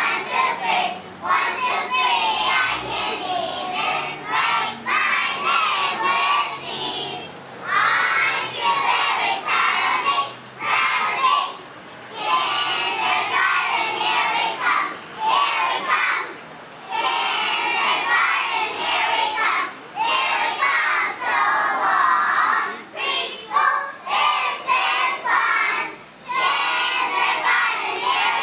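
A group of preschool children singing a song together, unaccompanied, in short phrases with brief pauses between them.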